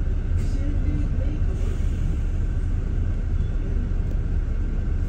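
Steady low rumble of a double-decker bus heard from inside on the upper deck as it moves slowly in traffic.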